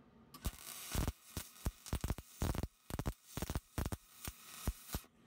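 MIG welding arc on aluminium, fusing an aluminium insert into an aluminium horseshoe: a crackling hiss broken into irregular spurts and sharp pops. It starts about half a second in and cuts off just before the end.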